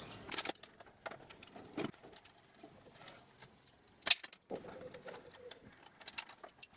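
Socket ratchet clicking briefly as the handlebar clamp bolts are backed out, then faint metallic clicks and taps of the loosened bolts and clamp being handled, with a louder clatter about four seconds in and a few sharp clicks near the end.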